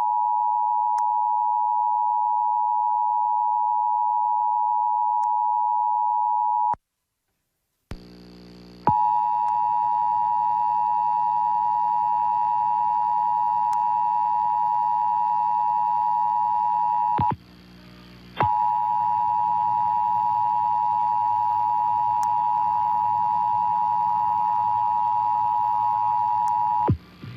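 Emergency Alert System attention signal: two steady tones sounding together, the 853 and 960 Hz pair, opening a Required Monthly Test. It breaks off for about a second around seven seconds in, resumes, and dips out briefly again about seventeen seconds in.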